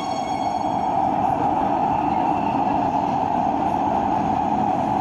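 Steady rushing running noise heard inside a moving Warsaw Metro carriage: the train's wheels on the rails and its traction equipment. A high whine made of several tones fades out about a second in.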